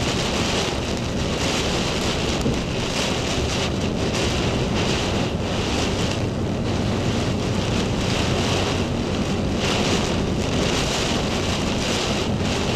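Strong storm wind and hard driving rain battering the microphone: a dense, steady rush of noise that surges and eases about once a second.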